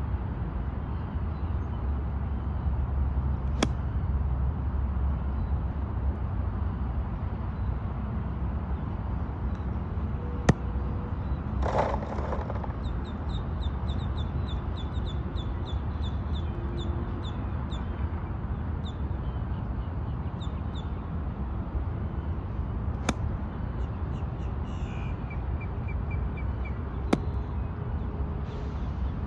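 Four crisp clicks of a golf wedge striking the ball, several seconds apart, over a steady low rumble. Around the middle a bird gives a quick run of repeated high chirps, and near the end a shorter run of falling notes.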